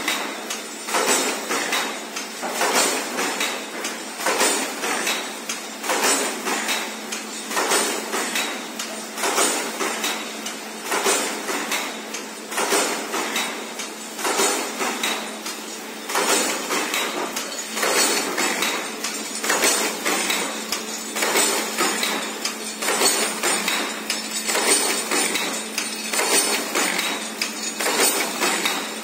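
HAFA fully automatic saw blade machine running, fitting saw blades to cartons. It gives a sharp metallic clank about once a second in a steady rhythm, over a steady low hum.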